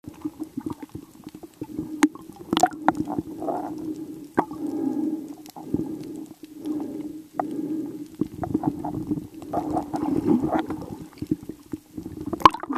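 Sound recorded underwater: muffled gurgling and sloshing of moving water over a steady low hum, with scattered sharp clicks and knocks as spearfishing gear and a speared fish are handled.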